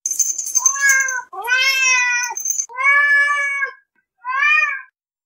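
Domestic cat meowing four times, each meow about a second long and rising then falling in pitch, with a high thin ringing tone at the start.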